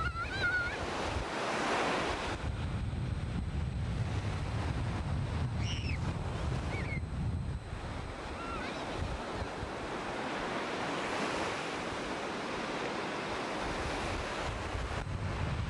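Ocean surf washing up on a sandy beach, with wind buffeting the camcorder microphone as a low rumble through the first half. A few brief high cries sound near the start and around the middle.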